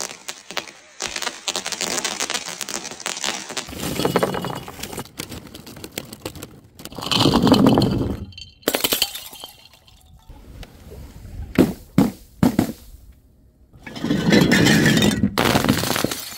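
Glass being broken one piece after another: a dense crackle and crunch for the first few seconds, then several separate crashes and sharp knocks with glass clinking. The loudest crashes come about halfway through and again near the end.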